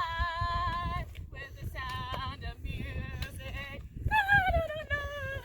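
A high voice singing or yodelling without words: a held, wavering note, then shorter choppy notes, then a long falling note near the end. Low thuds from walking or handling the camera sit underneath.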